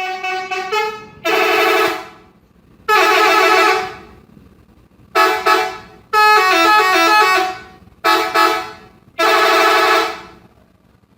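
Indonesian bus 'telolet' musical horn playing a tune. It opens with a run of quick notes, then gives a series of loud blasts about a second long with short gaps between; the longest blast, near the middle, steps through several notes.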